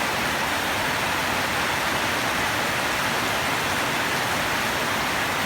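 Steady rain falling, an even hiss with no thunder or other distinct sounds.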